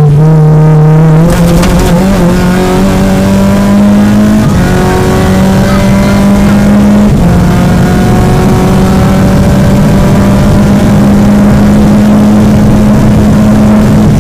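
Peugeot 205 GTI's four-cylinder engine heard from inside the cabin, pulling hard under load. Its pitch jumps up about a second in, then climbs slowly, with short drops at gear changes about four and a half and seven seconds in.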